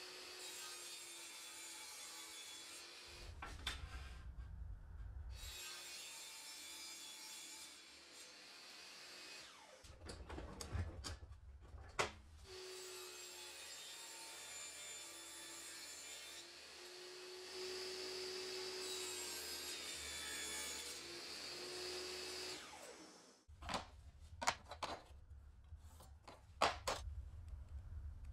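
Woodworking shop sounds in several short takes: a power tool running steadily as it works wood, with sharp knocks and clicks of wood and tools between takes.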